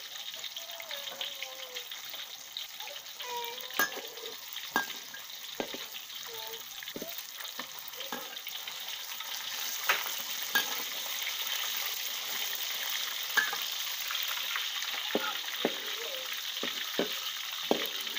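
Asian sea bass frying in hot oil in a steel wok, a steady sizzle, with a metal spatula clinking and scraping against the wok about a dozen times as the fish is turned and pushed, most often near the end.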